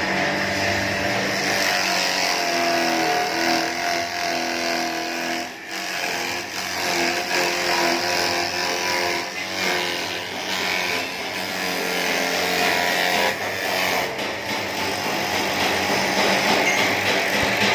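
Small 200-watt electric grass chopper running, its motor humming steadily under a whirring, rushing blade noise. The pitch and level shift slightly, with a brief dip about five and a half seconds in.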